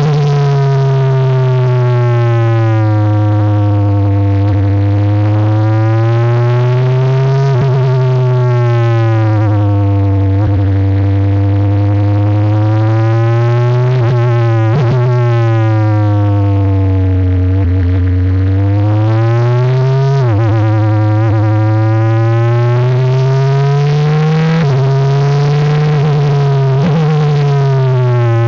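Onboard sound of a Tatuus Formula 4 car's Abarth 1.4-litre turbocharged four-cylinder engine at racing speed. The note climbs under acceleration and falls on braking several times over, with a few sudden steps in pitch.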